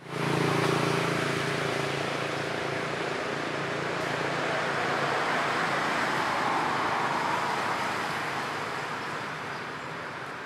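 Outdoor background noise: a steady low hum that fades out about halfway through, and a broad rushing sound that swells around six seconds in and then slowly dies away.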